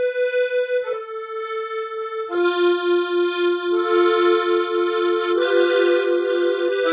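Piano accordion playing right-hand treble notes: single held notes step down in pitch, then from about two seconds in, held chords that gain notes twice more. The sustained tones have a fast pulsing in level.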